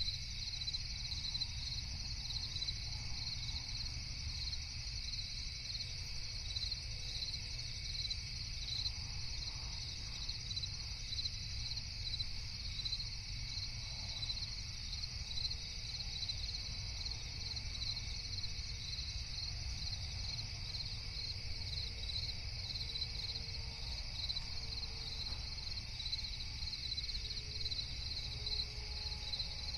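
Night insect chorus of crickets chirping steadily in rapid even pulses, over a low background rumble.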